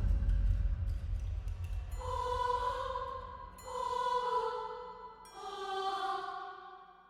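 Eerie horror sound-effect music: a deep low rumble fades out, then three long pitched tones sound about every second and a half, each swelling and dying away, the last fading to silence near the end.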